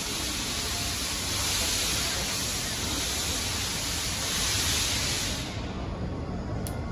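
Steam-hauled passenger train of old-style coaches rolling slowly into a station platform, with a steady loud hiss over a low rumble; the hiss cuts off about five and a half seconds in, leaving the rumble.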